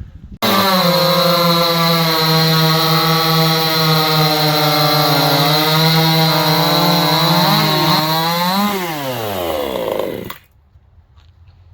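Supmix gas chainsaw starting suddenly and running at high, steady revs, then its pitch falls away as the revs drop, and it stops abruptly near the end.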